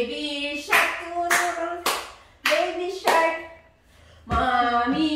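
Hands clapping a steady beat, about five claps a little over half a second apart, with a voice singing along. There is a short pause about three and a half seconds in, then the singing starts again.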